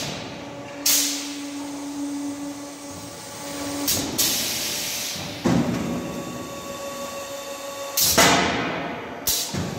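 Automatic silage bagging machine running through a packing cycle: a steady motor hum broken by about five sudden hissing blasts that fade off over a second or so, as its pneumatic actuators work and vent air.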